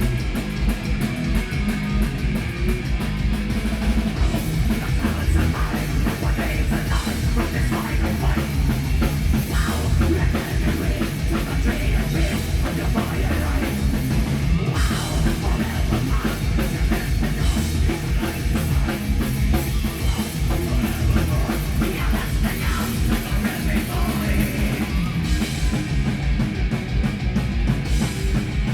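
Live heavy metal band playing: distorted guitars, bass and a pounding drum kit at full volume.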